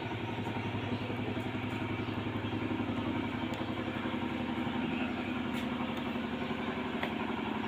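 Domestic cat purring steadily, a continuous low rumble with a fast even pulse, while it is stroked on its belly.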